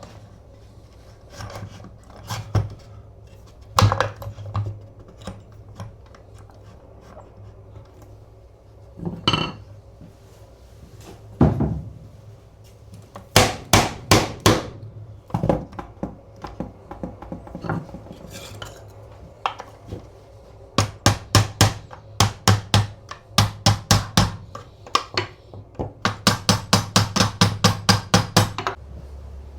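Sharp metallic taps and clinks on the parts of an antique coffee grinder, with a few scattered knocks first and then several quick runs of regular strikes, the fastest about five a second near the end, as the grinder is knocked apart.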